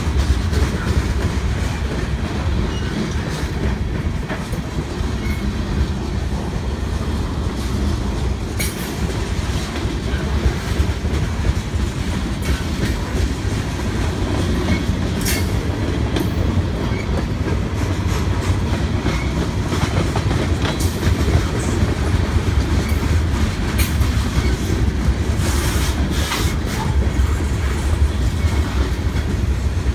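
Freight train cars rolling past close by, their wheels on the rails making a steady low rumble with a few sharp clicks scattered through.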